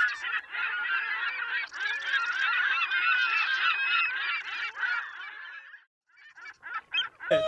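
A flock of birds calling all at once, many overlapping honks and squawks, that breaks off suddenly about six seconds in, leaving a few scattered calls.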